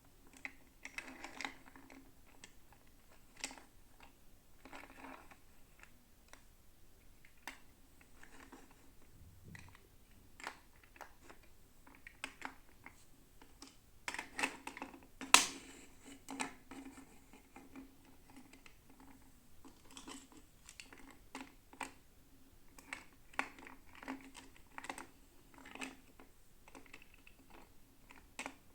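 Hands unboxing toy dolls: irregular light clicks, taps and short rustles of plastic packaging and small parts being handled, with one sharper click about halfway through.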